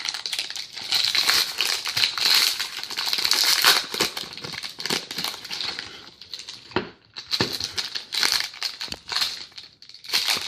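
Foil wrapper of a trading card pack crinkling as it is torn open and handled, with irregular bursts of rustle and a few sharp crackles.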